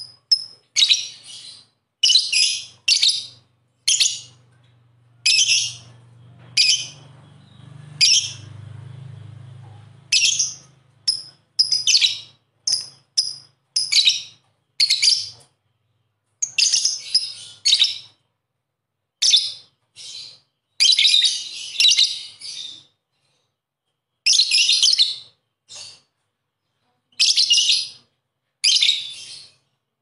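Lovebird chattering: shrill, rapid screeching calls in short bursts of a second or less, repeated with brief pauses between them.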